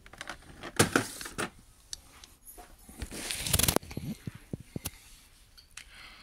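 Handling noise from a boxed plastic aircraft model's packaging: scattered clicks and rustles of cardboard and clear plastic, with a louder, longer rustle about three and a half seconds in.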